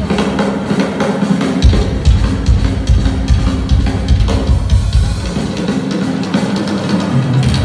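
Drum kit played live in a drum solo, dense rapid hits, with heavy kick drum strokes from about two seconds in. A sustained bass and guitar tone holds underneath.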